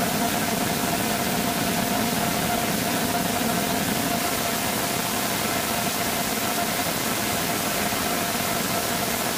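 Rocket engine with a 3D-printed RAMFIRE nozzle firing on a test stand: a loud, steady hiss of exhaust with a faint constant tone running through it.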